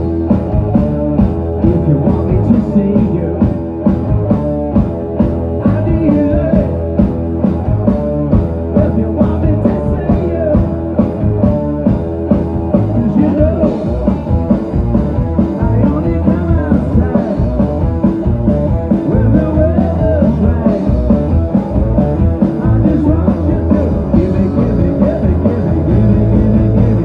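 Live rock band playing loud, with electric guitars, bass guitar and a drum kit keeping a steady beat.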